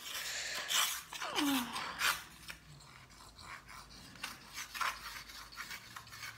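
Scratch test on a Kindle's e-ink display: a hand-held tool scraping and scratching across the screen's surface in short, uneven strokes, strongest in the first two seconds.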